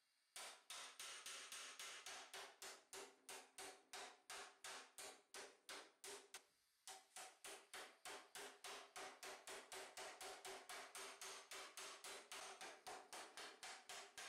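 Small hand hammer rapidly striking red-hot 1.5 mm mild steel plate on a steel stake, about four blows a second, each with a brief ringing note. The hammering stops briefly about halfway through, then carries on at the same pace.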